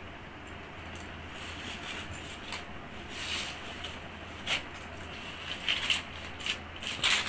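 Sarees and their packaging being handled and moved about: a rustle of cloth and wrapping with several sharp clicks and taps, growing busier in the second half.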